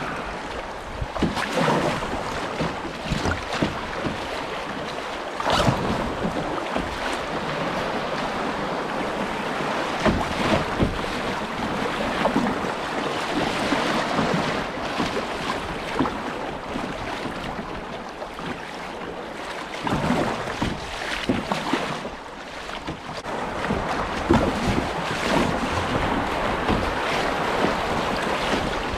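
River water rushing and splashing around a moving kayak running fast, choppy water, with irregular splashes throughout and wind on the microphone.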